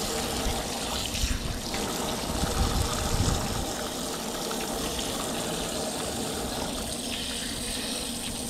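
Water running steadily from a tap, with a few louder low bumps between about one and three and a half seconds in.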